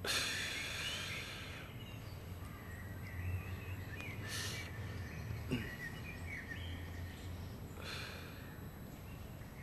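Outdoor city ambience: a low steady rumble under small birds chirping here and there. A hiss opens it and fades after about a second and a half, and two more short hisses come about midway and near the end.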